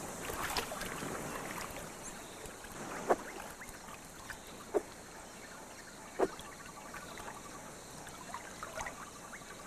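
Shallow river water trickling and lapping, with a few small separate splashes about three, five and six seconds in, as a clawless otter tumbles an inflated puffer fish about in the water.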